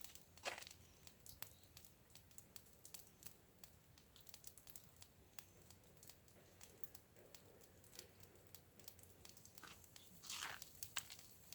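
Near silence with faint scattered light clicks, and a soft rustle about half a second in and again near the end.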